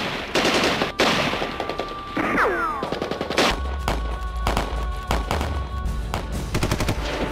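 Battle gunfire: rapid rifle shots and machine-gun bursts cracking repeatedly, with a falling whistle a little over two seconds in.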